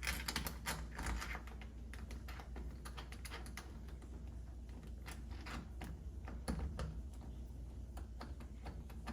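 Small sharp clicks and taps of deadbolt screws and lock hardware being fitted and screwed in by hand, a quick flurry at the start, then scattered single clicks.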